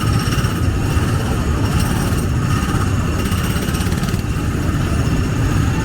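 Tomorrowland Speedway ride cars' small petrol engines running together in a steady, very noisy drone.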